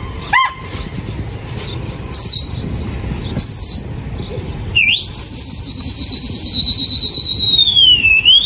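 A pigeon flyer's loud, high whistle. Two short whistles come first, then one long whistle held for about three and a half seconds that dips in pitch near the end and rises again.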